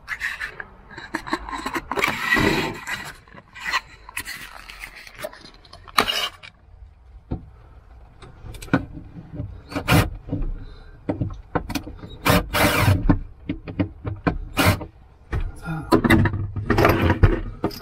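Irregular knocks, taps and scrapes of hands working at the panels of a camper van's cupboard, with rustling handling noise; several sharp single knocks are spread through the middle.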